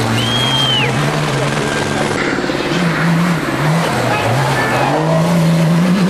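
Rally-raid car's engine revving hard through deep sand, its pitch climbing, dipping twice in the middle and climbing again, over a constant hiss of tyres throwing sand. Spectators' voices and a short high whistle near the start.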